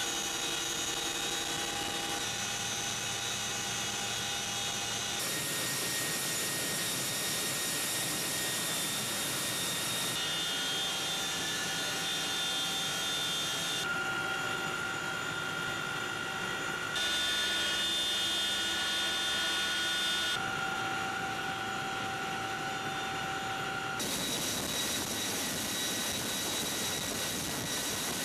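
Helicopter turbine engines and rotors running, a steady rushing noise with a high turbine whine. The sound shifts abruptly every few seconds as the shots change.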